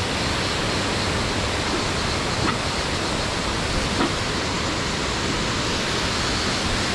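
Steady rushing of a waterfall and its rocky mountain stream, an even wash of water noise.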